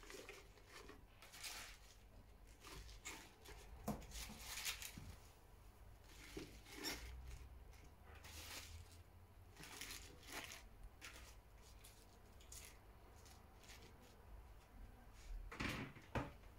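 Fresh spinach leaves rustling and crinkling as they are pressed by hand into a plastic measuring jug, in a series of soft, irregular handling sounds. They come in brief clusters, with the loudest near the end.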